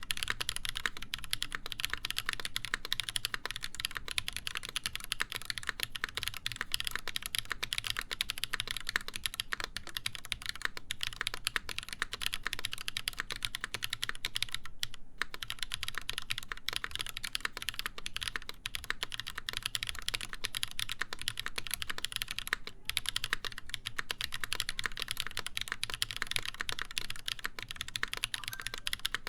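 Continuous fast typing on a mechanical keyboard with lubed Holy Panda tactile switches, full brass plate and GMK keycaps, a dense run of key clacks with a brief pause in the middle.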